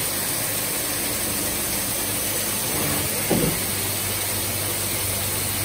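CHIRON DZ 18 W vertical CNC machining centre running with coolant spraying in its work area: a steady hiss over a steady low machine hum, with one brief louder swell about three seconds in.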